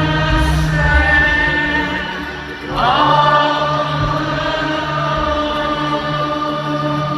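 Live gospel worship music: voices sing long held notes over steady low accompaniment. About three seconds in, a new note slides up into place and is held.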